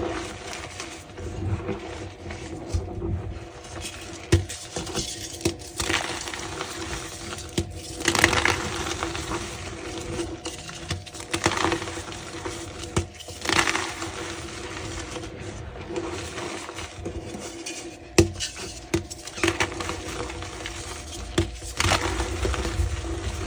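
A reformed block of gym chalk being crushed, in irregular crunches and crumbles with occasional sharper snaps.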